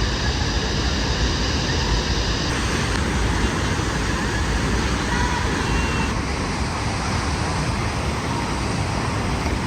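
Steady rushing roar of a waterfall, a dense even wash of falling water.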